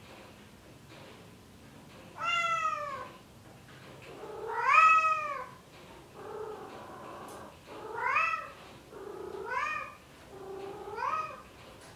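Male Bengal cat in heat meowing to call a female: six drawn-out calls, the loudest about five seconds in.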